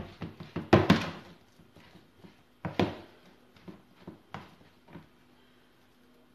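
A utensil knocking and scraping against a plastic tub as a mashed potato mixture is stirred: irregular knocks, loudest about one and three seconds in, fading out after about five seconds.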